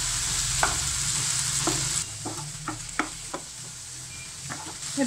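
Potatoes and ivy gourd sizzling in oil in a non-stick frying pan as a wooden spatula stirs them, with scattered knocks of the spatula against the pan. The sizzle drops quieter about two seconds in.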